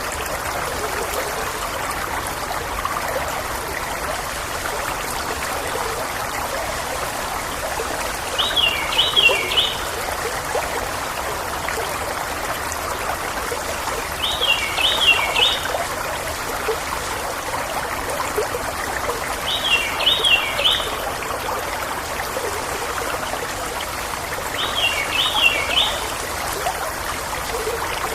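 River water trickling and babbling steadily, with a bird repeating the same short, high phrase of a few quick notes four times, about every five seconds.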